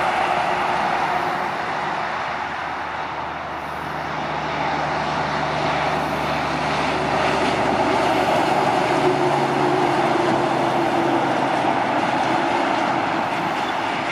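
Road train (a truck hauling several trailers) driving by: steady diesel engine and rolling tyre noise, easing a few seconds in and swelling again toward the middle.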